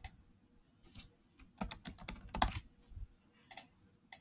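Typing on a Chromebook laptop keyboard: scattered key clicks with two quick runs of keystrokes in the middle, as a short phrase is typed in.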